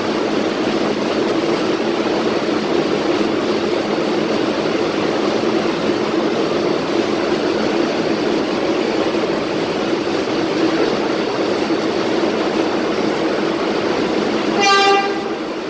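R188 subway train of the 7 line moving along the platform, giving a steady rumble of wheels and traction motors. A short horn toot sounds about a second before the end.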